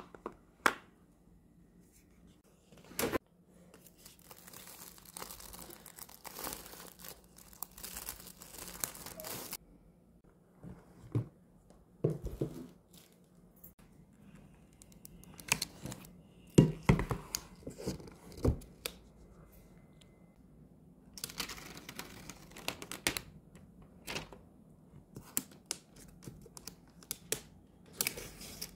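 Unboxing handling noise: the plastic protective wrap on a new iPad Air being picked at and peeled, crinkling and tearing in long rustling stretches. Between them, cardboard box parts slide and knock in sharp taps.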